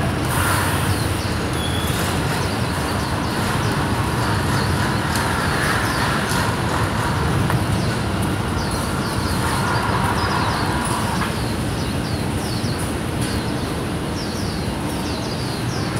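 Steady outdoor traffic noise, with birds chirping over it in many short falling chirps throughout.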